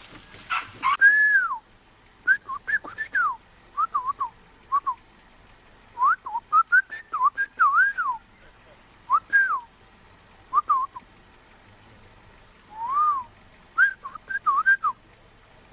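Someone whistling: short phrases of clear notes that swoop up and down, repeated again and again with pauses between them.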